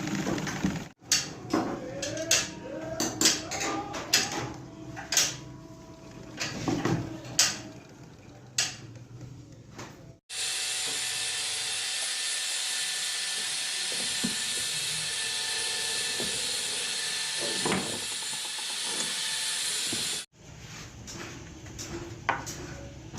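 Workshop hand-work noises: scattered sharp clicks and light metal knocks, then a steady hiss for about ten seconds that cuts in and out abruptly, then more light clicks.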